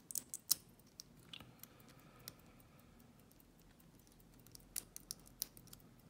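Lock pick and tension wrench working the pins of a small pin-tumbler lock cylinder: scattered faint clicks and light metal scraping, with a few sharper clicks about half a second in and around five seconds.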